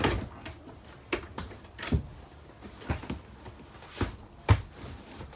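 Fold-out couch being converted into a bed: a series of knocks and clunks, roughly one a second, the loudest about four and a half seconds in.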